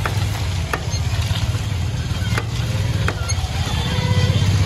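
Large metal drum of a roller ice cream machine turning steadily, a low rumble with a few sharp clicks spread through it.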